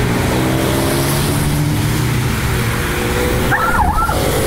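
Several sports cars pulling away one after another, their engines running at steady, overlapping pitches over the hiss of tyres on wet pavement.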